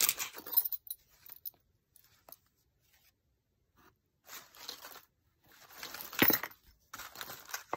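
Hands rummaging through a cardboard box of bead strands with paper card tags: paper and card rustling with beads knocking together. A short burst at the start, then a few quiet seconds, then several bursts near the end.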